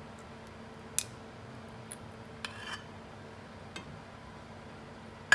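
Small spatula scraping syrup out of a metal measuring cup over a stainless steel saucepan, with a few light clicks and clinks of utensil on metal and a sharper ringing metallic clink near the end, over a faint steady hum.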